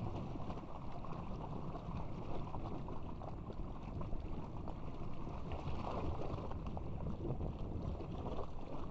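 Water rushing and splashing under and around an inflatable raft tube as it slides down a water slide flume, a steady noisy rush with wind buffeting the microphone.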